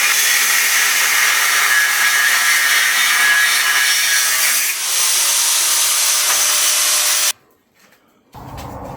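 A power tool running steadily under load on steel chassis rail, with a harsh, hissing grind. It cuts off abruptly about seven seconds in. After a moment of near silence, a quieter, lower sound starts near the end.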